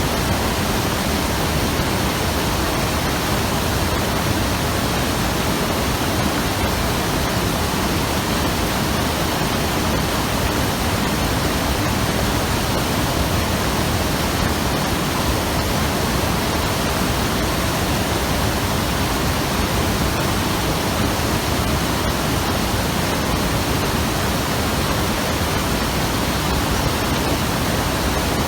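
Mountain river rushing over rocks: a loud, steady roar of flowing water with no change.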